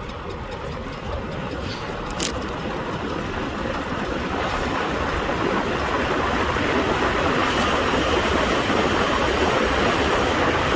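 Wind rushing over the microphone along with road-bike tyre noise on a fast downhill, growing steadily louder as the bike gathers speed. There is a brief click about two seconds in.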